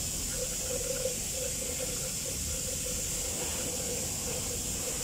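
Liquid pouring from a plastic gallon jug into a truck's coolant filler neck, a steady pour as the cooling system is refilled.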